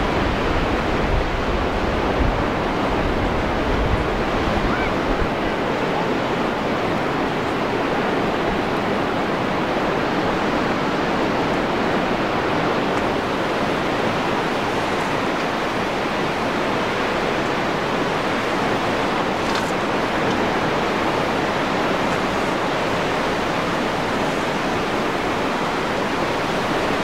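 Steady wash of ocean surf breaking along a beach, with some low wind rumble on the microphone in the first few seconds.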